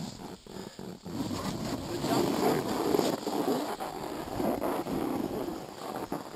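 Snowboard sliding and carving over packed glacier snow, heard close from a board-mounted camera: a scraping rush that grows louder about two seconds in and swells and eases with the turns, mixed with wind on the microphone. A few light knocks in the first second.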